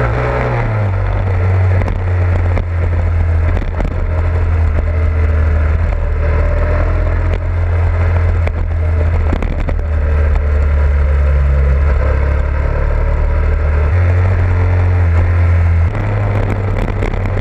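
Motorcycle engine running at riding speed with heavy wind rumble over the microphone, and other bikes in a group ride running close by.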